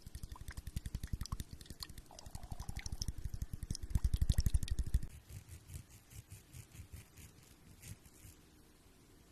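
A man's stomach growling: a rapid gurgling rumble of many quick pulses that builds to its loudest about four seconds in, then breaks off into softer, sparser gurgles. A short higher-pitched gurgle comes about two seconds in.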